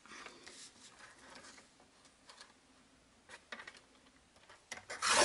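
Light taps and rustles of kraft cardstock being handled and marked with a pencil, then a louder scrape near the end as a strip is cut on a sliding paper trimmer.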